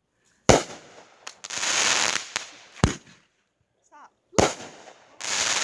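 A 500-gram cake firework firing its shots: three sharp bangs, about half a second in, near the middle and just after, with two long crackling, fizzing bursts of effects in between and near the end.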